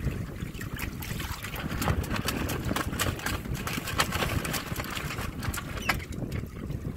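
Water splashing and trickling along the hulls of a Windrider 17 trimaran under sail, many small splashes over a steady rumble of wind on the microphone.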